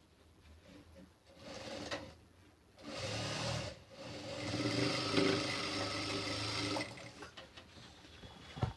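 Sewing machine stitching piping onto a blouse lining in short starts and stops, the last and longest run lasting about three seconds before it stops near the end.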